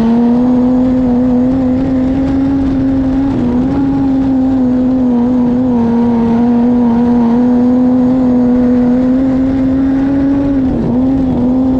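Wingless sprint car's methanol-fuelled Holden 3.8 V6 (Buick V6) running at high, fairly steady revs through 6-into-1 headers joined into a single pipe, heard from on board the car. The pitch holds level apart from short dips a little over three seconds in and again near the end.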